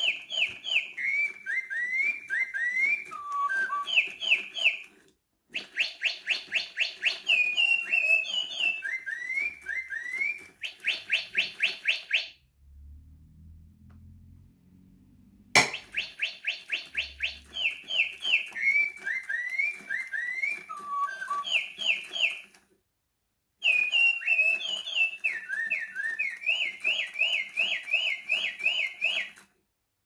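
Sound-activated electric toy bird playing recorded birdsong through its small speaker: phrases of quick, sweeping whistled chirps and trills, repeated in runs of several seconds with short pauses. Midway it falls quiet for about three seconds, then starts again with a click.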